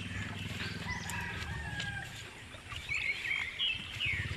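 Birds chirping and calling, with many short repeated chirps, over a low droning hum that fades out about two seconds in.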